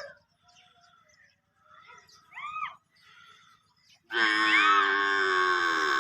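Faint bird-like chirps, then about four seconds in a loud, drawn-out call from young livestock, held for about two seconds with its pitch sagging slightly.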